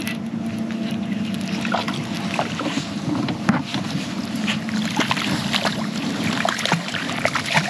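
Boat motor running steadily while trolling, with scattered clicks and knocks from rod handling close to the microphone.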